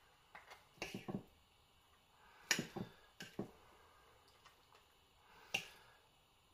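Quiet, scattered light taps and knocks, about half a dozen, from a toasted tortilla shell and kitchenware being handled. The sharpest knock comes about two and a half seconds in.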